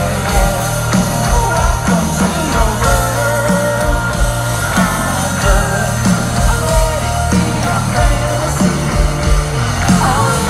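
Indie rock band playing live over a festival PA, recorded from within the crowd: a steady drum beat, electric guitars and a singer's voice.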